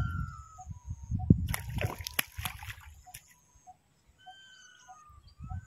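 Water splashing and sloshing in a stream, loudest about two seconds in. Birds whistle in the background, with a soft call repeating about every half second.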